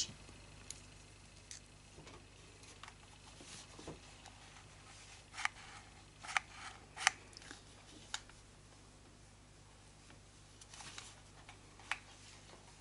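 Faint handling noises: small rustles and short sharp clicks of hands working the crocheted flower and its materials, with a cluster of sharper clicks about halfway through.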